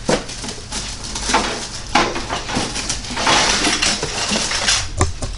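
Metal air fryer oven racks and parts clinking and knocking as they are handled, with a stretch of crinkly rustling from plastic wrapping in the middle.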